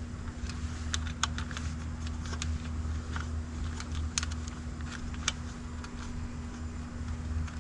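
Scattered small clicks and ticks of a dual battery discharge balancer module and its wire leads being handled, over a steady low hum.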